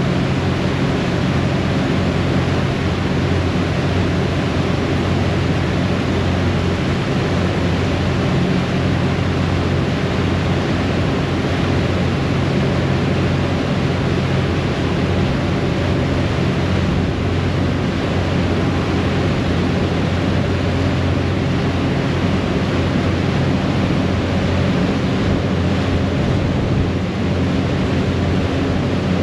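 A harbour ferry's engines running steadily underway, with the rush of its churning wake and wind.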